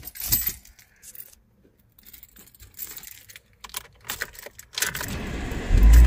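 Keys jangling and clicking on the ignition key ring, then near the end the 2005 Ford Focus's 2.0 L four-cylinder engine starts and settles into a steady low running sound.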